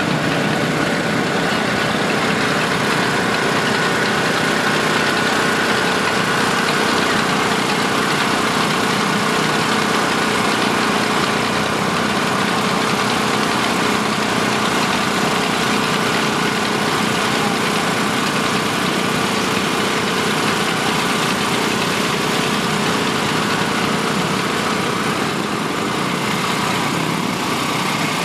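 Vehicle engine idling steadily, an even running sound that holds the same level throughout.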